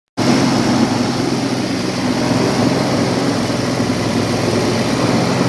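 Cassava grating-and-pressing machine for tapioca starch running steadily, a motor hum under a dense, even rushing noise. It cuts in suddenly just after the start and holds at a constant level.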